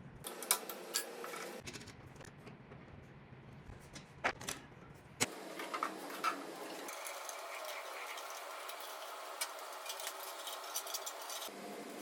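Clicks, knocks and metallic rattling from a bandsaw having its blade changed, heard as several short cut-together clips, with a steadier mechanical sound through the later part.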